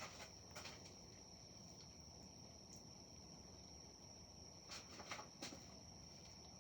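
Near silence: faint room tone with a thin, steady high-pitched whine, one soft click under a second in and three more close together about five seconds in.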